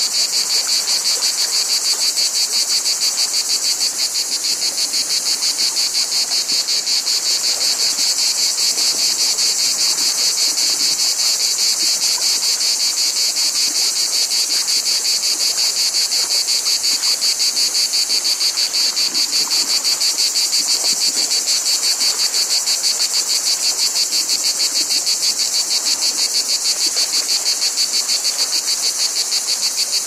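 Dense chorus of periodical cicadas: a loud, steady, high-pitched buzz with a fast, even pulsing.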